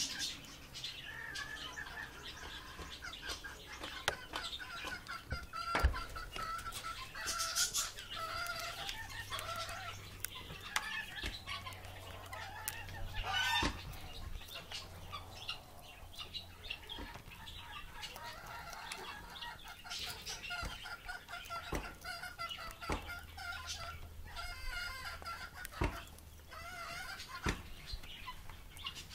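Two Amazon parrots feeding, giving soft, repeated clucking and chattering calls that waver in pitch, with a few sharp clicks scattered through.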